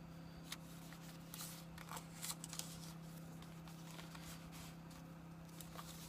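Paper pages of a handmade junk journal being turned and handled: faint paper rustles and soft taps, several in the first half and one near the end, over a steady low hum.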